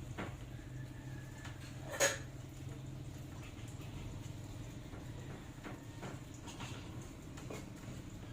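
Scattered light clicks and taps, as of small objects being handled, with one sharper clack about two seconds in, over a steady low hum.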